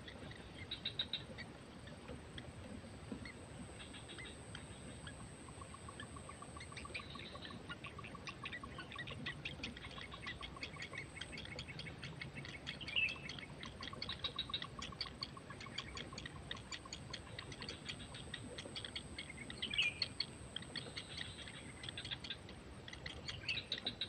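Heron nestlings giving fast, dry ticking begging calls that grow denser in the second half as the parent arrives to feed them, with a few louder short calls among them.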